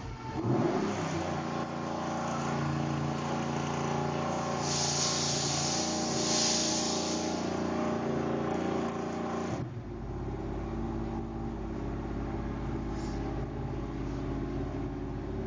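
A car engine running steadily. About ten seconds in, the sound changes abruptly to a duller, lower rumble.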